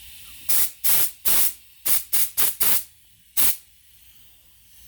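Compressed air from an airline nozzle fed by a Sanborn air compressor's tank, let out in eight short hissing blasts in quick succession, the last after a short pause, about three and a half seconds in.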